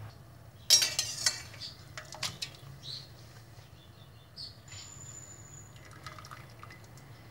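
Metal slotted skimmer clinking against a stainless steel pot, a cluster of sharp clinks about a second in and a few more around two seconds, then water splashing and dripping back into the pot as blanched cabbage leaves are lifted out.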